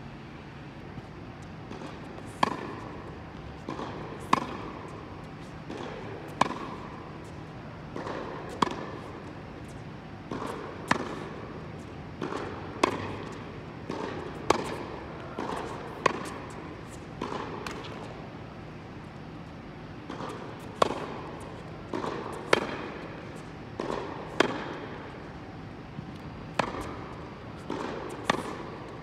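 Tennis rally: sharp pops of rackets striking the ball, the loudest about every two seconds, with quieter ball bounces on the hard court between them, each echoing briefly in an indoor tennis hall.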